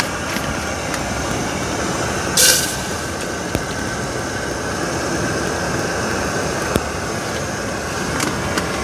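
Jetboil canister gas stove burning with a steady rushing roar while water is poured into its cup, with a brief sharper hiss about two and a half seconds in.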